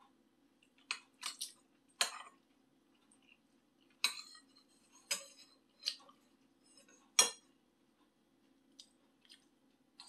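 A metal fork clinking and scraping against a dish while tofu is cut and picked up: about eight sharp clinks spread unevenly, over a faint steady low hum.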